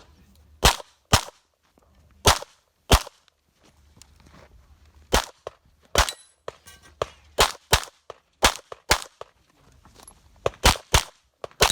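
A string of 9mm pistol shots fired in rapid pairs (double taps) during a practical shooting stage, about fifteen in all. There is a longer pause roughly four seconds in between shot pairs.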